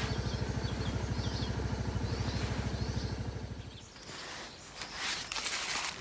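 Suzuki Van Van 200's single-cylinder four-stroke engine idling with an even, steady pulse, then shut off about three and a half seconds in. Faint birdsong is heard over it, and light rustling follows near the end.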